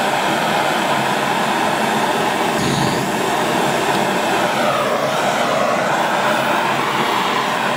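Handheld propane torch burning with a steady hiss of the flame, turned up high enough to give too much heat.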